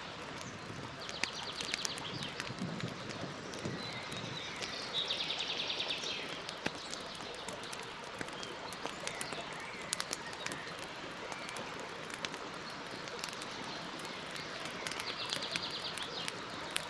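Campfire crackling, with sharp pops over a steady hiss. A bird gives a short, rapid trill three times: about a second in, around five seconds in, and near the end.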